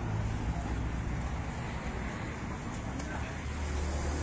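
Steady low rumble of road traffic, with indistinct voices.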